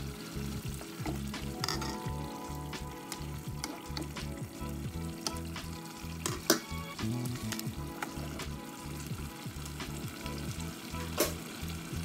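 Saltfish stew simmering in a pot with a light sizzle while a wooden spoon stirs it. The spoon knocks sharply against the pot twice, about six and a half and eleven seconds in.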